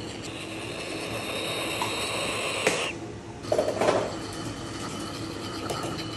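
Moluccan cockatoo making a drawn-out, slightly rising high sound that cuts off suddenly after about two and a half seconds. About half a second later comes a short, harsh, noisy burst, over a steady background hum.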